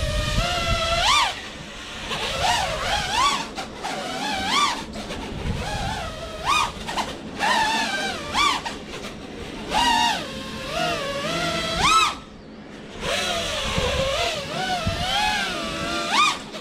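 FPV freestyle quadcopter's motors whining, the pitch swooping up and down in quick surges as the drone hovers and darts low over the grass. Near three quarters of the way through the whine drops away almost completely for about a second, then picks up again.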